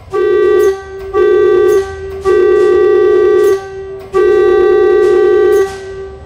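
Compressor-fed pneumatic air horn of an NM-22 rubber-tyred metro train sounding four blasts on one steady note: two short, then two long. A softer tone carries on between the blasts.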